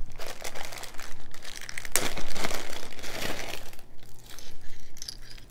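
Clear plastic zip-lock bag crinkling as beaded necklaces are rummaged through and pulled out of it, with light clicks of wooden beads knocking together. The crinkling is busiest around the middle and dies down near the end.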